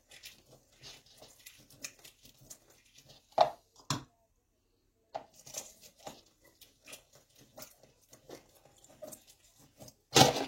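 A lemon being squeezed for its juice: a run of soft wet squelches and crackles, with two sharp knocks about three and a half and four seconds in and a loud knock near the end.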